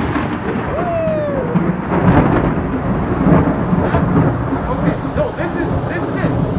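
Severe thunderstorm: loud, heavy rain pouring onto pavement, with thunder rumbling.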